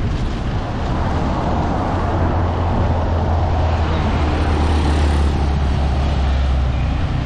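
Road traffic noise: a motor vehicle's engine running close by, a low steady hum that grows stronger about two seconds in and holds, over a rushing haze of road and wind noise.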